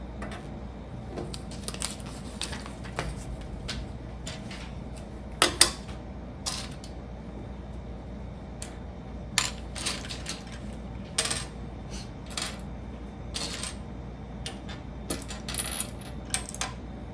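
Small plastic Lego pieces clicking and clattering as they are handled and sorted, in irregular sharp clicks with a louder pair about five and a half seconds in.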